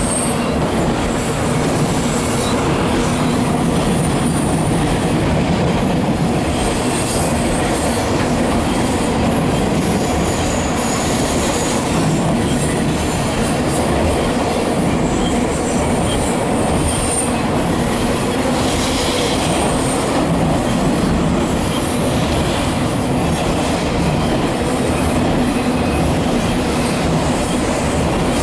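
Double-stack intermodal freight train rolling steadily over a steel girder bridge: a continuous rumble and rattle of wheels on rail, with brief, faint high wheel squeals now and then.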